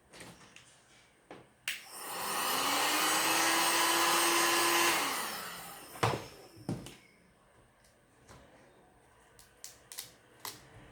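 A hand-held hot-air blower runs for about three seconds: its motor whine rises as it spins up, holds steady with a rush of air, then winds down. It is being used to heat and soften the adhesive holding a phone battery. Sharp clicks and taps of tools on the phone come before and after it.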